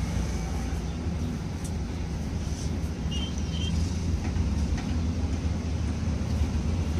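Steady low rumble of outdoor background noise, with a few faint light clicks and knocks.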